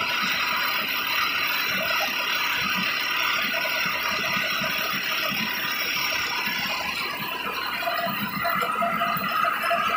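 Tractor-driven mobile rice mill running steadily while it discharges milled grain into a sack.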